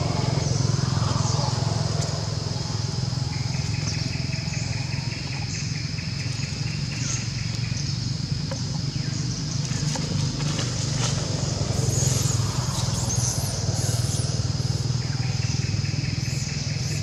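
Steady low motor hum, as of an engine running nearby, with a constant high-pitched whine above it and a fainter buzz that comes and goes twice.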